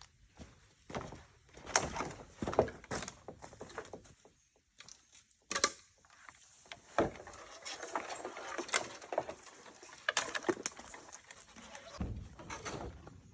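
Hand tools knocking and scraping on bamboo: irregular sharp knocks, with stretches of rasping scraping between them.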